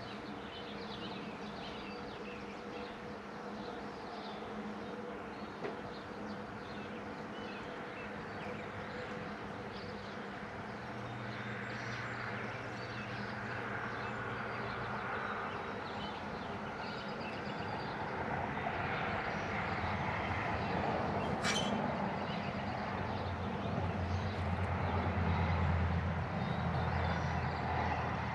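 Outdoor background noise with a vehicle's engine hum from the nearby road, growing louder over the last ten seconds, and one sharp click about three-quarters of the way through.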